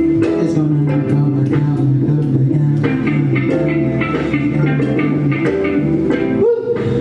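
Music with a repeating bass line and plucked guitar over a steady beat.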